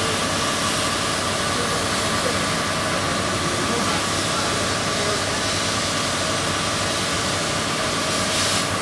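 Laser cutter running as it cuts plywood: a steady hiss of its fans and air assist with a constant whine, and a brief louder rush near the end.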